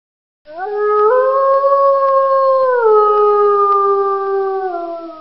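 A wolf's single long howl. It rises in, steps up in pitch about a second in and holds, then steps down twice and fades near the end.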